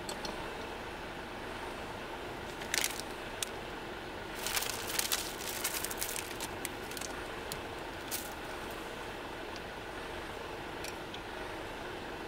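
Steady hiss of a small canister gas camping stove burner. Over it a plastic wrapper crinkles in short spurts, busiest from about four and a half to six and a half seconds in, with a few single clicks after.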